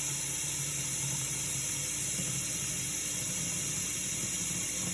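Water running steadily from a tap into the clean-water tank of a Hoover PowerDash carpet cleaner as it is filled up to the fill line.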